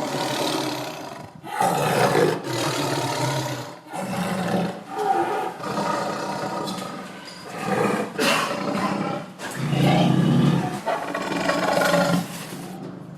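A large animal's loud, rough calls, repeated one after another, each about a second long with short gaps between.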